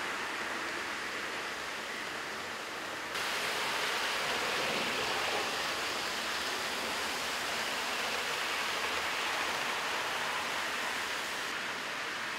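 Steady, even rushing noise of the exhibition hall's ambience, with a faint hum and no distinct clicks. It jumps louder about three seconds in and eases slightly near the end.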